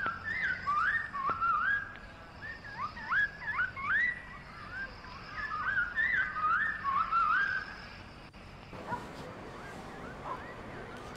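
Clear whistled notes sliding up and down in short, repeated phrases, stopping about eight seconds in; after that only a faint, steady outdoor hum.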